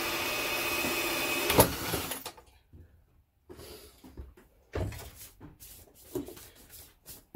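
Power drill driving a 40 mm hole saw into 110 mm PVC waste pipe: the motor runs steadily for about a second and a half, ends with one sharp crack, and winds down. After that come a few scattered knocks and clunks.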